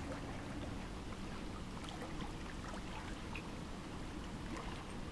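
Lake water lapping gently against a rocky shore: a steady low rush with small scattered splashes and drips.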